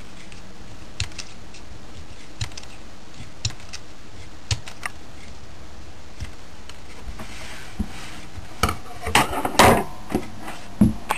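Scissors snipping small pieces of ping pong ball plastic: separate sharp snips, roughly one a second, then a louder run of snips and rustling near the end.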